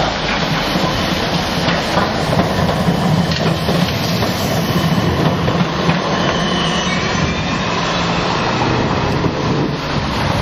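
Siemens Combino low-floor tram passing close by on wet street track: a steady rumble of its wheels and running gear, with a few clicks over the rails in the first few seconds.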